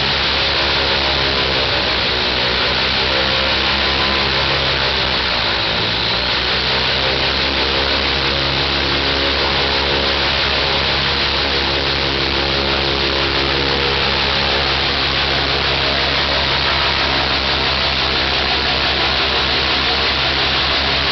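Ilyushin Il-14T's right engine, a Shvetsov ASh-82T fourteen-cylinder radial, running steadily on a ground run with its propeller turning, under a loud rush of propeller wash. Its pitch dips briefly and recovers about six seconds in.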